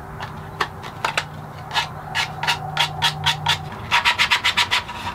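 Hand sanding a wooden box's drilled notch: short back-and-forth rubbing strokes of sandpaper on wood. A few come scattered at first, then a steady run of about four a second, which quickens to about eight a second near the end.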